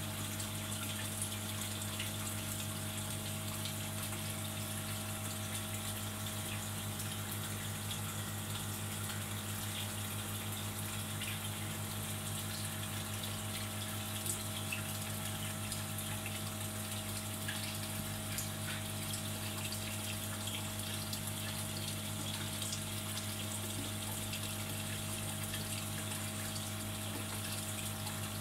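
Aquarium air stone bubbling steadily, a continuous fizzing hiss with faint scattered pops, over the steady low hum of the air pump feeding it.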